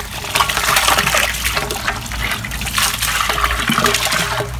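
Water from a pump-fed garden hose pouring and splashing into a steel barrel partly full of water, louder in two stretches, over a steady low hum.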